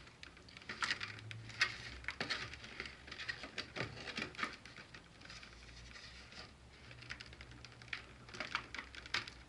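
Toy packaging being handled: a clear plastic tray and cardboard box crackle and tap in irregular small clicks while scissors cut the ties still holding the figure in.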